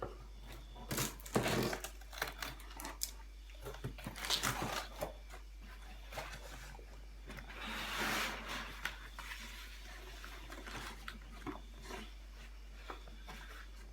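Cardboard and plastic packaging of a guitar box being cut and torn open: irregular snips, scrapes and rustles, busiest in the first few seconds, with a longer crinkling rustle about eight seconds in.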